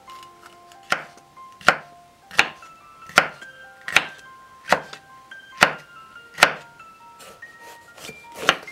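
Kitchen knife slicing bell pepper into strips on a wooden cutting board: a sharp chop against the board about every three-quarters of a second, with a short pause near the end. A light chiming melody plays underneath.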